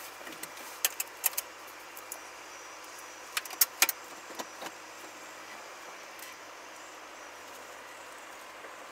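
A car moving slowly, heard from inside the cabin: a steady low running noise with sharp rattling clicks, one cluster about a second in and a louder cluster near four seconds.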